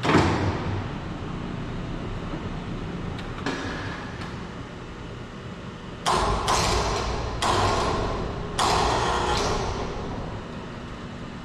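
Metal rigging gear being handled: a sharp clank at the start, a lighter knock a few seconds later, then four loud clattering, scraping bursts in quick succession around the middle.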